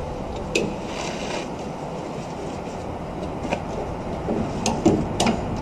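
Steady low rumble and hiss, with a few sharp clicks just under five seconds in from a ratchet strap being tightened on a truck's load.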